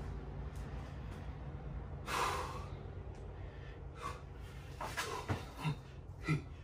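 A man breathing hard from the exertion of burpees: one heavy exhale about two seconds in, then short, quick breaths in a fast rhythm from about five seconds in.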